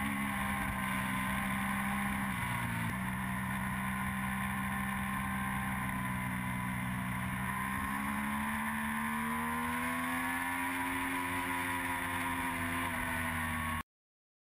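Triumph Daytona 675 three-cylinder engine running at track speed, heard from on board the bike over wind hiss. The engine note dips briefly about two to three seconds in, then climbs slowly from about seven seconds in and eases off again. It cuts off suddenly about a second before the end.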